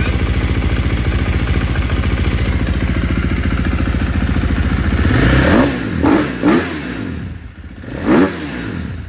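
2018 KTM 350 XC-F dirt bike's single-cylinder four-stroke engine idling steadily, then blipped about four times in the last few seconds, each rev rising and dropping back quickly. It is the first test run after a cracked fuel-pump filter that made it sputter and bog was replaced, and it revs cleanly.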